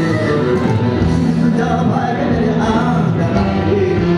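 Live dangdut band playing, with a man's voice singing the melody over electric guitar, saxophone and a steady bass line.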